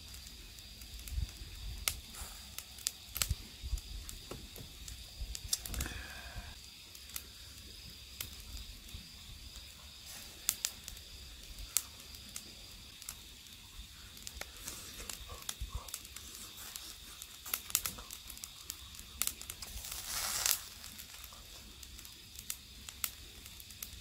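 Close-up eating sounds: charcoal-grilled gizzard shad being torn apart by hand and chewed, with many small scattered clicks and crackles and a short hissing burst near the end. A faint steady high tone runs underneath.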